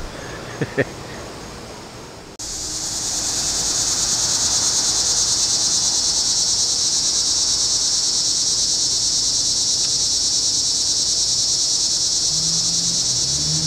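Loud, steady chorus of late-summer evening insects: a continuous high-pitched trill with a fine rapid pulse, cutting in abruptly about two seconds in.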